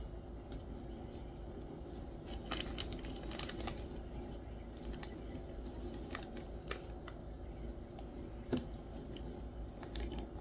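Faint, irregular crunching clicks of popcorn being chewed, with a cluster of them a few seconds in and a few scattered ones after.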